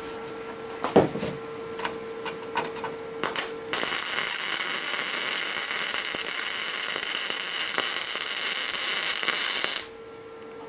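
Electric welder arc on the car's trunk sheet metal: a steady, loud hiss that starts abruptly about four seconds in and cuts off sharply about six seconds later, after a few light clicks and taps.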